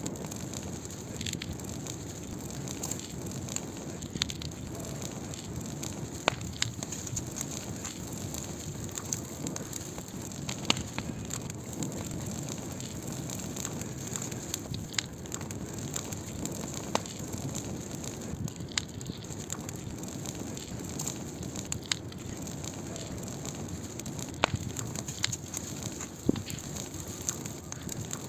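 Wood fire burning: a steady low rush of flames with irregular sharp crackles and pops, a few of them louder than the rest.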